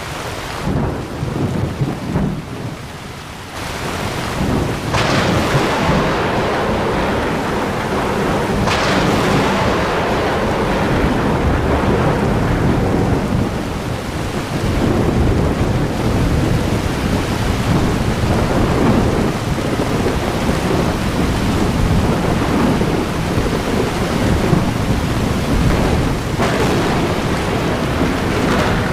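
Thunderstorm: steady heavy rain with rolling thunder, sharp cracks about five and nine seconds in and another near the end, each trailing into a long low rumble.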